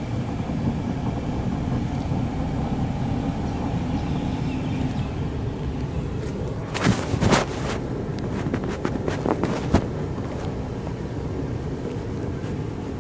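Steady low rumble of a car's engine and tyres heard from inside the cabin while driving. About halfway through comes a cluster of sharp knocks and clicks, the loudest sounds here, then a few more scattered ones.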